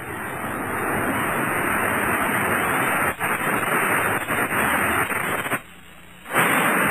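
Collapse of a World Trade Center tower, heard as a loud, steady rush of dense noise on the camera's microphone. It cuts out abruptly for under a second near the end, then resumes.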